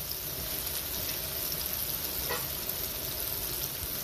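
Cauliflower frying in hot grease: a steady sizzle.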